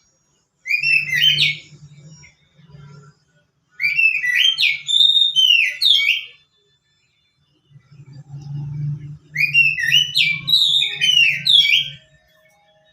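A songbird singing loud phrases of quick, gliding whistled notes in three bursts, about a second in, around four seconds in and from about nine seconds, with a low buzzing hum under the louder phrases.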